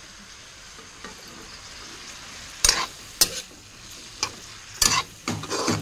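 Cauliflower florets sizzling as they shallow-fry in oil in a metal kadhai. From about two and a half seconds in, a metal spoon stirs and scrapes the pan in five or six loud, quick strokes.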